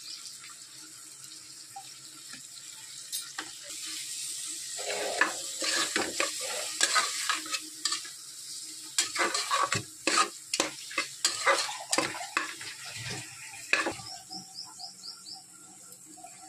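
Onion, tomato and spice masala frying in oil in an aluminium pressure cooker, with a steady sizzle. From about four seconds in until near the end, a metal spatula stirs it, scraping and clinking against the sides of the pot.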